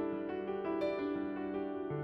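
Background piano music, a string of held notes, with a new lower chord coming in near the end.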